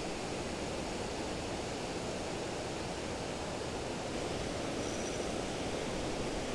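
Steady rush of fast river water tumbling over shallow rapids below a weir.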